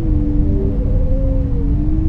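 Whale calls: long, drawn-out tones that overlap, one dipping slightly and then slowly rising, a higher one falling away near the end, over a steady low rumble.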